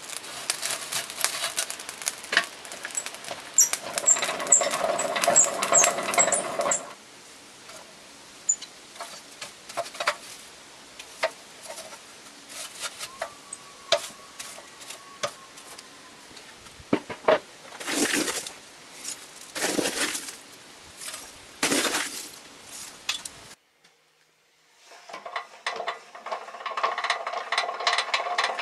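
Lump-charcoal fire in a field forge, crackling and popping under a rush of air from a hand-driven blower. The air stops about seven seconds in, leaving scattered pops and clicks with three broad whooshes about two seconds apart. After a brief drop-out the air rush comes back near the end.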